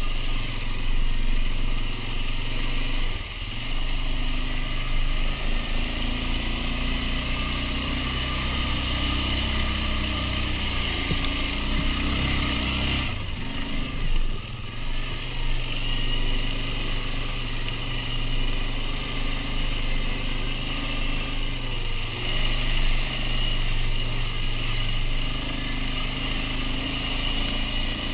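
Quad bike (ATV) engine running, its pitch rising and falling several times as it is throttled up and eased off.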